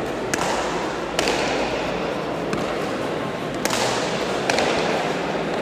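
Leather pelota ball struck bare-handed and smacking off the walls and floor of a left-wall fronton during a rally: several sharp cracks roughly a second apart, each ringing on in the hall.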